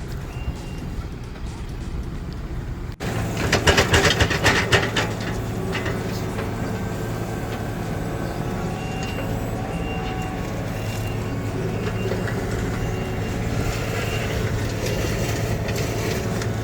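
Diesel earthmoving machine running steadily, its reversing alarm beeping about once a second. A short burst of loud clattering and rattling comes a few seconds in.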